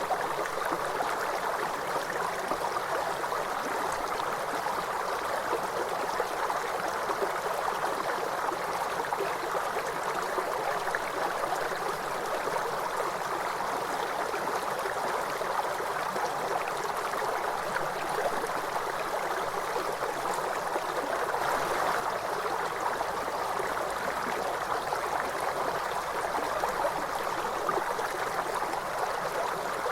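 A stream or small river flowing over rocks, a steady rushing and gurgling of water.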